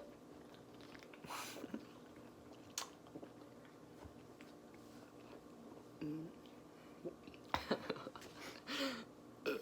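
Faint gulping and swallowing as a drink is chugged, with soft mouth sounds and a click. Near the end come a few short, low throat sounds, one with a falling pitch.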